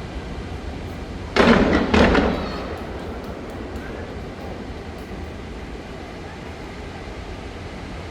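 Fireworks shells bursting: two loud booms about half a second apart, each trailing off, followed by a few faint crackles.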